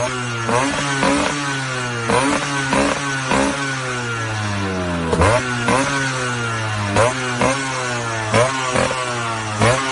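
Yamaha RX100 two-stroke single-cylinder motorcycle engine being revved: about a dozen quick throttle blips over a steady idle, the pitch dropping back after each blip.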